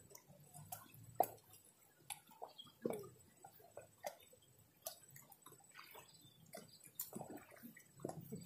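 Faint, irregular clicks and ticks with small drip-like water sounds, one sharper click about a second in.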